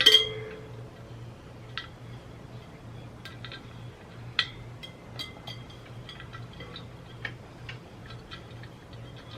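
Irregular light metallic clicks and taps of a hand tool against a motorcycle wheel rim during tire and tube fitting, some ringing briefly. The clicks come about a dozen times, the strongest about halfway through.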